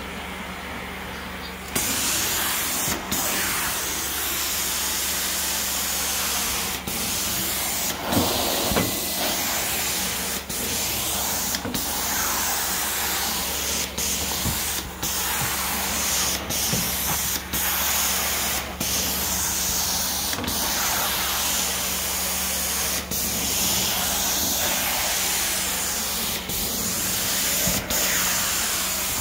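Carpet-cleaning extraction wand spraying hot water into carpet and vacuuming it back up. A loud steady hiss and rush of air runs over the machine's low steady hum. The hiss comes in about two seconds in and has short breaks every second or two.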